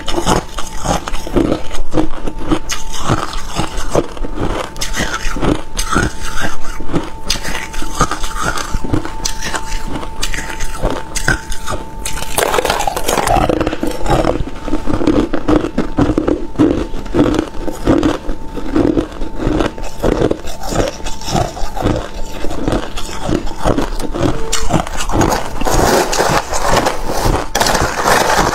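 Crushed ice being bitten and chewed up close: a dense run of sharp, irregular crunches and cracks as mouthfuls of hard ice break between the teeth.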